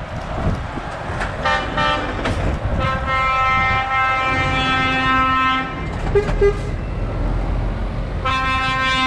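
Lorry air horns sounding as convoy trucks pass: a few short blasts about a second and a half in, a long blast lasting about three seconds, two brief toots around six seconds, and another long blast starting near the end. Diesel truck engines run underneath.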